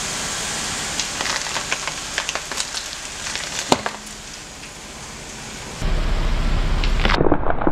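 Banana blossom crushed under a car tyre: scattered crackling and snapping of its tightly packed bracts, with one loud snap about halfway through. A low steady hum comes in near the end, with more crackles over it.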